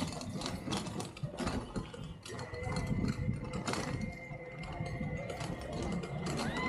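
Rickshaw rattling and clicking as it rolls along the street, a dense run of small knocks over a low rumble, with a faint steady whine underneath.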